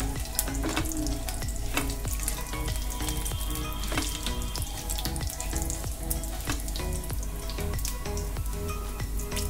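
Cumin and mustard seeds sizzling in hot oil in a frying pan, crackling with many small pops, as the tempering (tadka) begins. Soft background music plays underneath.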